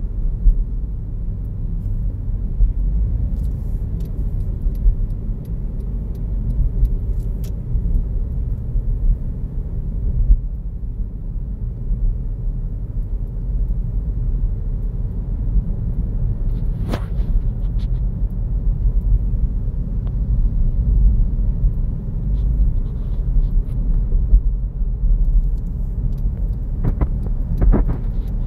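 Car driving along: a steady low rumble of road and engine noise, with a few short clicks about two-thirds of the way through and again near the end.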